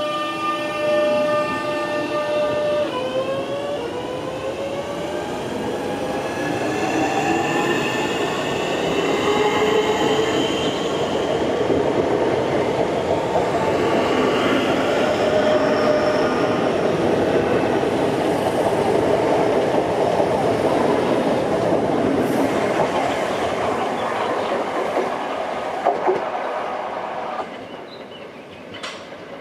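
Electric multiple unit train pulling out and accelerating away: a whine from its traction motors drops in pitch once about three seconds in, then climbs steadily as the train gathers speed, over the rumble of wheels on the rails. The sound falls away sharply a couple of seconds before the end.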